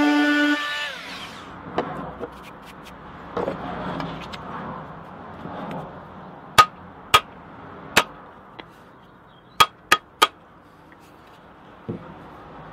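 Hatchet head being knocked down onto its new wooden handle against a workbench. Sharp knocks with a short metallic ring: a few light ones, then three loud knocks about half a second apart, a lighter tap, and three more loud ones in quick succession. Background music fades out in the first second.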